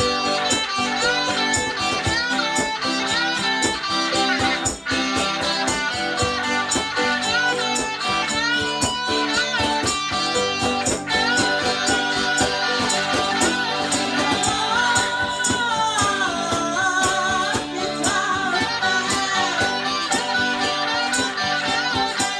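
Small band playing a country-blues song live: electric and acoustic guitars, keyboard and cajón, with a melody line bending up and down through the middle.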